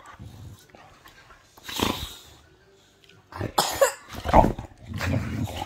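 A boxer dog play-fighting with a hand, giving several short, rough huffs and growls.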